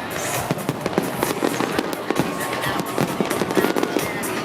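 Fireworks going off in quick, irregular succession: a dense run of bangs and crackles with no pause.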